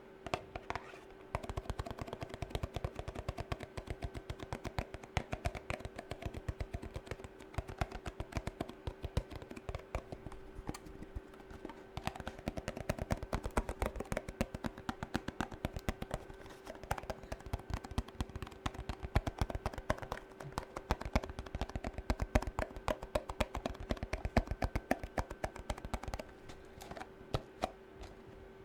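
Fast fingernail tapping: a dense run of quick, crisp clicks that thins to a few scattered taps near the end, over a faint steady hum.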